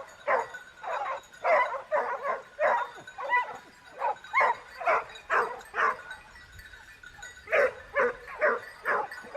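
Dog barking over and over in short, sharp barks, two or three a second, with a break of about a second and a half past the middle.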